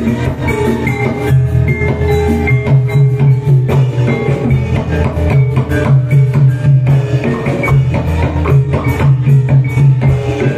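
Loud live Javanese jathilan accompaniment music: drums and percussion strike rapidly over a pulsing low beat, with held pitched notes from melody instruments.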